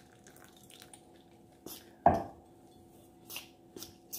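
A spoon stirring water into crumbly flour-and-butter pastry dough in a bowl: one heavy knock about two seconds in, then a few light scrapes and clicks.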